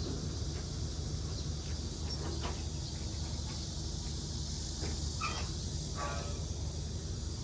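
Outdoor yard ambience: a steady low rumble and an even high hiss, with a few short, faint calls, the clearest about five and six seconds in.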